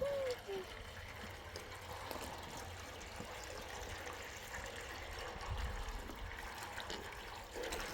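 Steady rush of flowing water, a stream or river running.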